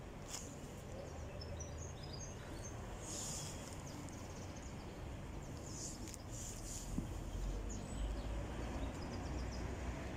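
Outdoor ambience: a steady low rumble, with small birds chirping now and then.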